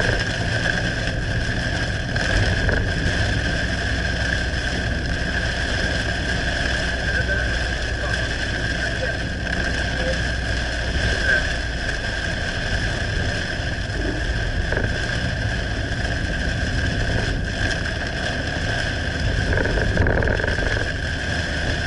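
Car driving along a highway, a steady mix of road, engine and wind noise heard from inside the cabin.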